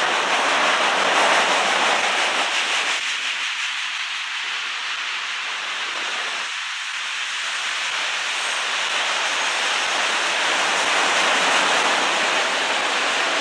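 A freight train's autorack cars rolling past, with the steady rushing noise of steel wheels on the rails. It eases slightly for a few seconds in the middle.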